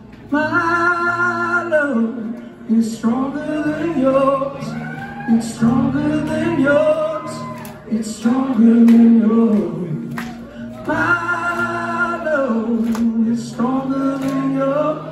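Live solo performance: a man sings long held notes that bend in pitch, accompanied by an acoustic guitar, played through a concert PA.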